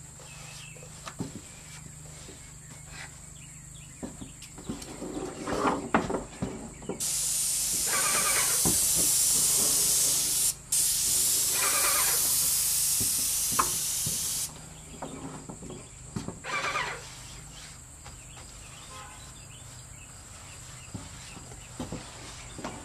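Airless paint sprayer's gun spraying wood stain through a fine finish tip: a loud, steady hiss that starts about a third of the way in, breaks off for an instant midway, and stops after about seven and a half seconds. A steady high chirring of crickets runs underneath.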